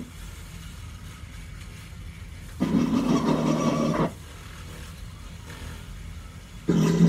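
Harsh noise music from a distorted electric guitar and microphone through an amplifier: a loud, harsh burst about a second and a half long begins about two and a half seconds in, and another starts near the end, with a steady low hum between them.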